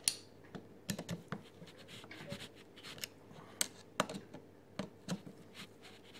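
Irregular small metallic clicks and light scraping of a long screwdriver turning the top-cap screws of a Mikuni BST36SS motorcycle carburettor, tightening them down.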